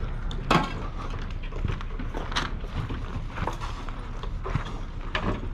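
Footsteps on a gravel and dirt path, about one step a second, the sharpest about half a second in, over a steady low rumble.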